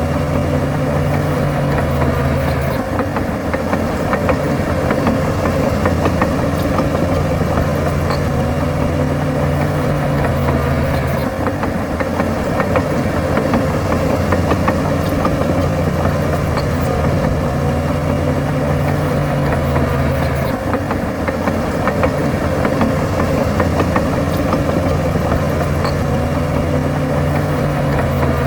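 Heavy diesel engine of earthmoving machinery running steadily, its note changing in a repeating cycle about every eight to nine seconds.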